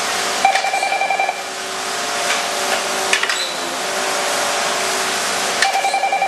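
Mattison hydraulic surface grinder running, its wheel spindle and hydraulic table drive giving a steady hum and hiss. A short buzzing rattle comes twice, about a second in and near the end, with a few clicks between.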